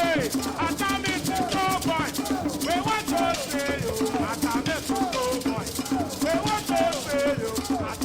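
Background music: a voice singing a gliding melody over a steady shaker and drum rhythm.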